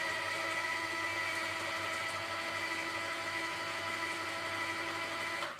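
Electric citrus juicer's motor running steadily with a constant whine as lemons are pressed on it; it cuts off at the very end.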